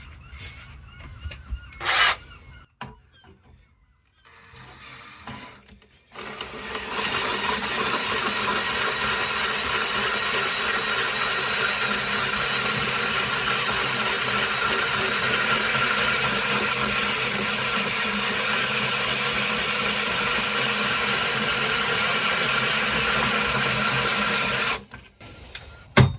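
Power drill driving a 22 mm hole cutter into the steel of a table saw blade: a steady grinding cut that starts about six seconds in and stops abruptly near the end. A brief loud knock comes about two seconds in.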